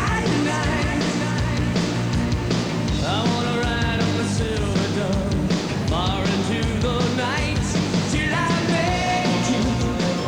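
Rock-style song with a singing voice.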